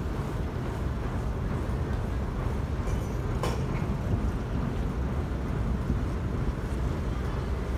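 River car ferry's engine running with a steady low rumble, heard from the deck as the boat pulls away from the landing. A brief click about three and a half seconds in.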